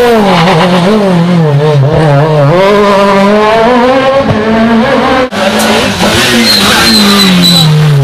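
Peugeot 306 rally car engines running hard at high revs through tight bends, the pitch dipping and climbing as the throttle is worked. After a sudden break about five seconds in, a second car revs on, with a thin tyre squeal near the end.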